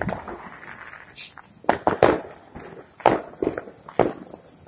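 Diwali fireworks: a spark-throwing handheld firework hissing, with about five sharp cracks and pops, irregularly spaced, most of them in the second half.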